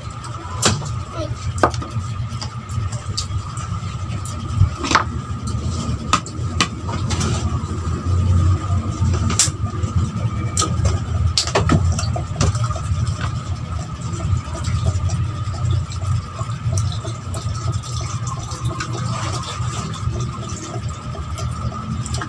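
Close-miked eating by hand: chewing and mouth sounds with scattered short, sharp clicks, over a steady low hum with a faint high whine.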